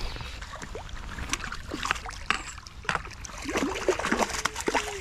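Water splashing and sloshing close by in small irregular splashes, with a burst of gurgling near the end, as a small, freshly caught trout is handled in the water.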